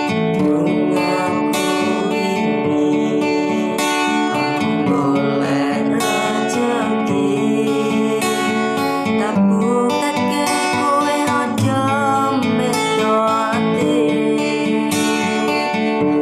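Guitar music: steadily strummed acoustic guitar chords with a melody line above them that bends in pitch.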